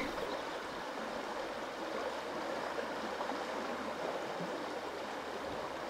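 River water running, a steady rush of current.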